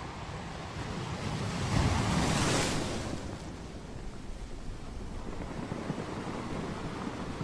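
Ocean surf: a wave swells up and breaks about two seconds in, then the surf washes on more quietly.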